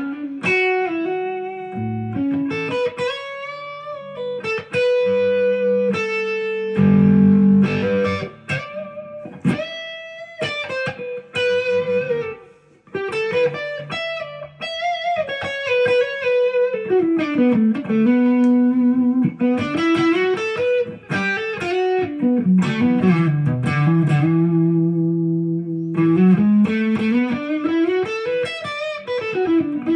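Epiphone Les Paul Custom electric guitar playing a melodic line, with notes sliding and bending up and down in pitch over lower held notes.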